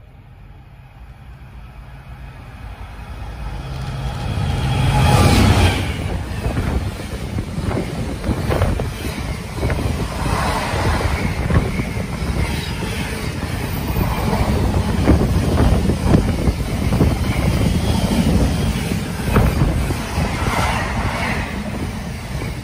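Freight train approaching and passing through the station at speed. The rumble builds to its loudest as the locomotive goes by about five seconds in, then the long line of wagons keeps rumbling and clattering over the rails.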